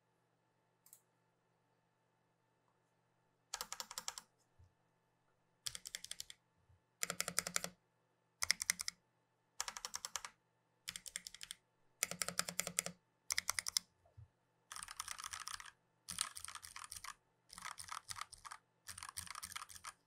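Royal Kludge RK84 mechanical keyboard being typed on in quick bursts of keystrokes with short pauses between them. The typing starts after a few quiet seconds, and the last bursts run longer.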